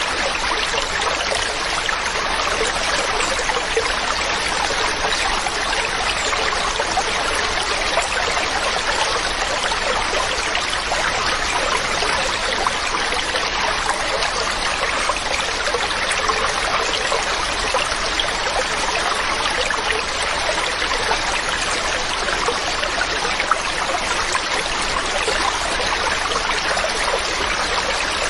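Mountain stream running steadily: an even, unbroken rush of flowing water.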